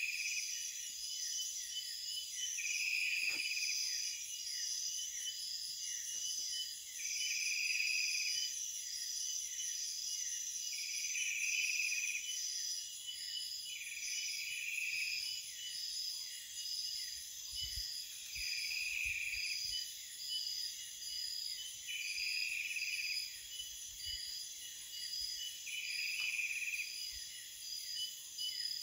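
Chorus of forest insects calling at once: a steady shrill high trill and a faster pulsing note, with a louder buzzing phrase that swells every three to four seconds.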